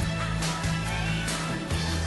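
Instrumental break of a pop song: the band plays a steady beat with drums and a sustained bass line, with no singing.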